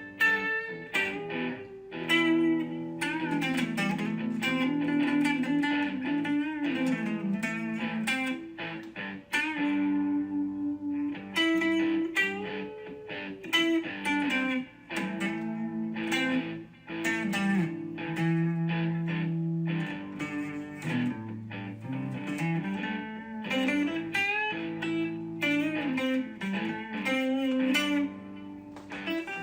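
Background music led by guitar: plucked notes over a moving bass line with a steady pulse.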